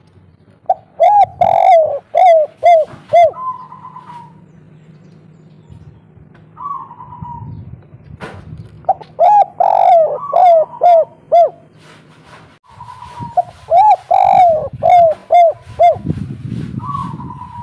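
Spotted dove (derkuku) singing its cooing song. Three bursts of five or six quick rolling coos, with longer drawn-out notes between them.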